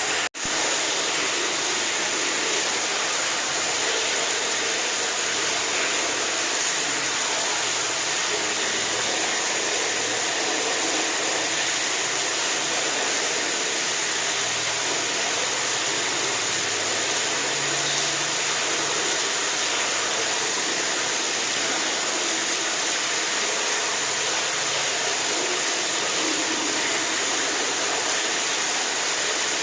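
Steady rushing water, an even hiss with no changes, with a brief dropout a fraction of a second in.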